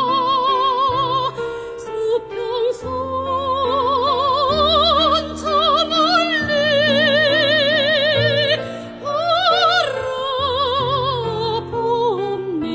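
Soprano singing a Korean art song in a classical operatic style with wide vibrato over an instrumental accompaniment; the line climbs to a long high note held for about two seconds, then falls back.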